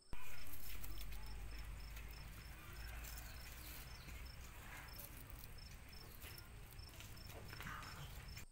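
Young wild pigs munching and rustling through a heap of leafy branches. Behind them an insect, likely a cricket, chirps steadily in short high pulses, about three a second.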